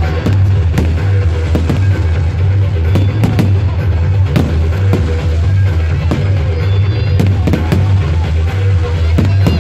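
Fireworks going off in a rapid, irregular string of bangs and crackles, over loud music with a heavy steady bass.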